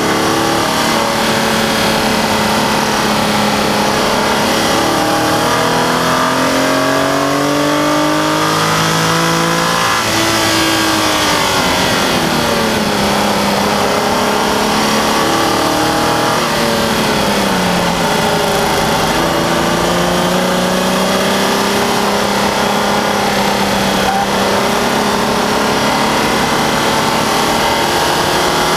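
Nissan 350Z's 3.5-litre V6 engine at full track pace, its pitch climbing under load, falling sharply twice, about ten and sixteen seconds in, then pulling up again. A steady rush of wind over the hood-mounted microphone runs beneath it.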